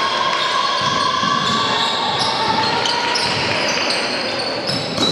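Basketball being played on an indoor court: many short sneaker squeaks on the floor and the ball bouncing, with a sharp knock near the end.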